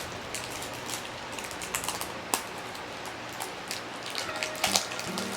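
Plastic wrapping crinkling and crackling in irregular small clicks as hands work a mystery toy out of its plastic bag, with a couple of sharper snaps.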